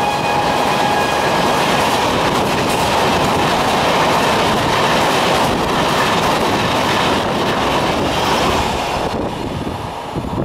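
LHB passenger coaches of an express train running past at speed, a steady loud rush of wheels on the track. A held train-horn note dies out about a second in, and the rush falls away near the end.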